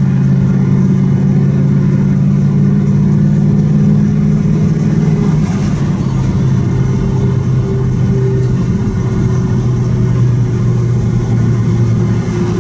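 Car cruising at motorway speed: a steady low engine drone over tyre and road noise, heard from inside a car, the drone shifting slightly in pitch about halfway through.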